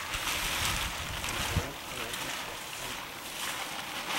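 Wind buffeting the microphone: uneven low rumbling under a steady hiss, with one brief thump about one and a half seconds in.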